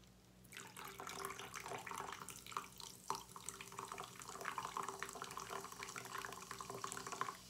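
Carbonated Alani Nu Blue Slush energy drink poured from a can into a plastic cup, the stream splashing and fizzing. It starts about half a second in and stops just before the end.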